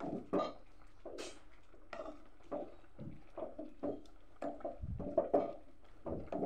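Wooden spatula stirring wet leafy greens in a metal cooking pot, with irregular soft knocks and scrapes against the pot.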